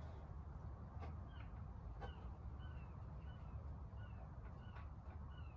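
A bird chirping faintly in the background, a string of short, high, arching notes about every half second. A few faint clicks sit under a steady low hum.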